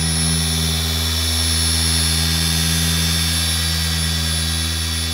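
Corded electric orbital polisher running steadily with a foam pad against a car's painted deck lid, cleaning off residue. It gives an even motor hum with a high whine over it.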